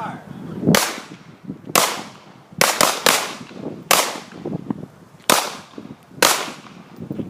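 Handgun shots being fired, about eight of them at an uneven pace, some in quick succession, each trailing off briefly.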